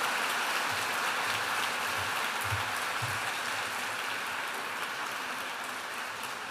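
Audience applauding, a steady patter of many hands clapping that eases off slightly toward the end.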